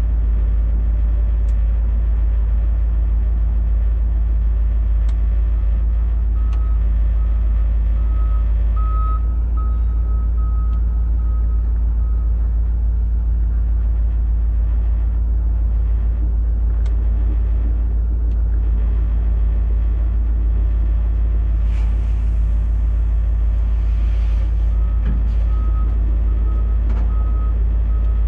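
Steady low rumble of a truck engine running, with a heavy machine's reversing alarm beeping in two runs: about six seconds in for several seconds, and again near the end.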